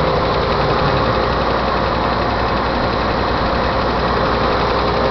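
1987 Dodge Dakota's original carbureted 3.9-litre V6 idling steadily soon after a cold start, with a clicking from the valvetrain that the owner puts down to a bad lifter and probably a stuck valve.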